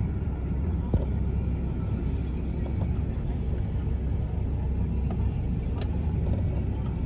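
Steady low rumble of a car driving, heard from inside the cabin, with road noise and a couple of small clicks.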